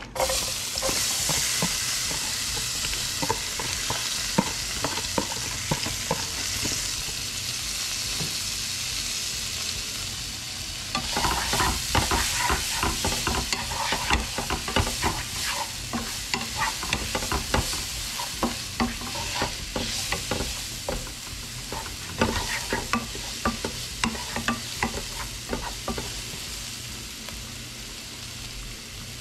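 Chopped onion, scallion and pepper dropped into hot curry-seasoned oil in a nonstick frying pan, sizzling at once with a steady frying hiss. From about eleven seconds in, a wooden spatula stirs them, adding quick scrapes and clicks against the pan over the sizzle.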